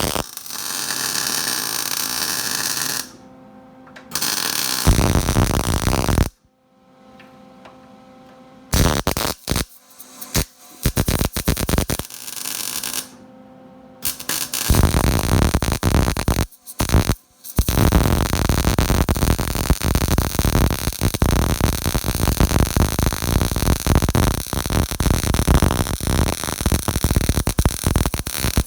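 MIG welder arcing in a series of short bursts, then one long continuous crackling bead from about halfway in, while welding steering-rack mounting brackets to the car's frame.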